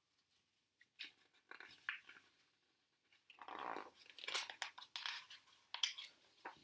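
Pages of a picture book being turned by hand: paper rustling and crackling, with a few soft crackles about a second in, then a longer rustle and a run of crisp crackles in the second half.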